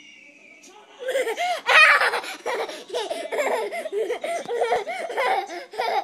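A young boy laughing hard and high-pitched in quick repeated bursts of giggles and belly laughs, starting about a second in.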